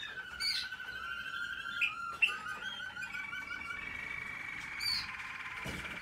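American Singer canaries singing: a continuous rolling song of fast trills and quickly repeated notes, with a few sharp higher chirps.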